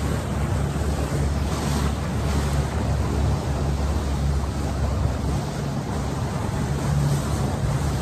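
Small motorboat underway at speed: a steady engine drone with water rushing past the hull and wind buffeting the microphone.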